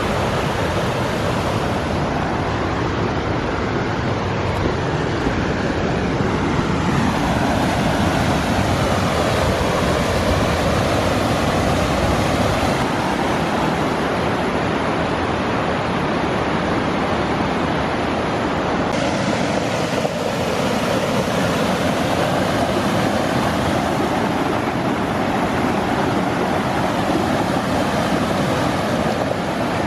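Mountain waterfall raging with heavy spring snowmelt runoff: a loud, steady rush of falling water, shifting slightly in tone twice.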